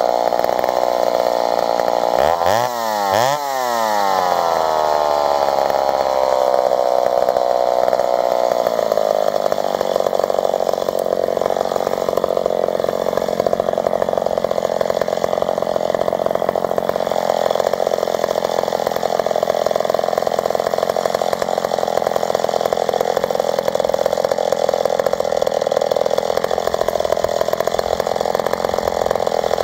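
McCulloch Super 55 two-stroke chainsaw, bored out to 83 cc, running hard while bucking a grand fir log. Its pitch dips sharply twice about three seconds in and recovers, then eases down and holds steady, wavering a little as the chain works through the cut.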